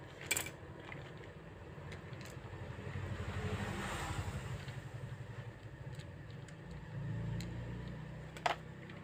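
Small electric motor and plastic gears of a toy RC rock-crawler car whirring in two spells, with a sharp click near the start and another near the end.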